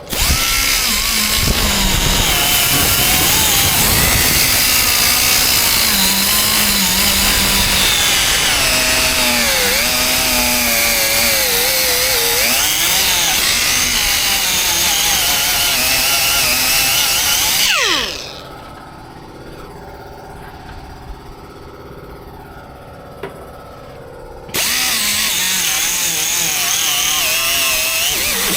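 Handheld power sander running on bodywork, its pitch wavering as the load changes. It winds down about two-thirds of the way through and starts up again a few seconds later.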